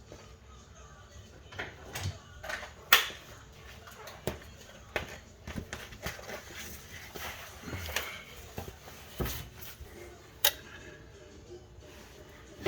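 Irregular metallic clinks and knocks of hand tools and parts being handled during flywheel installation, the loudest about three seconds in.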